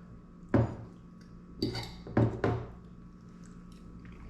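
Cutlery clinking against a plate as a bite of cooked fish is cut and picked up: four sharp clinks within the first two and a half seconds, then quiet handling.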